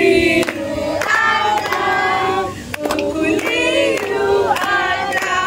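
A mixed group of adults and children singing a birthday song together, with hands clapping along.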